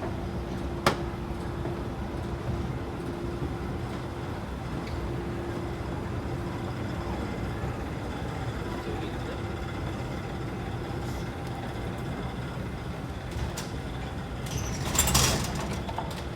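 Steady low rumble of a moving vehicle, with a sharp click about a second in and a short hissing burst near the end.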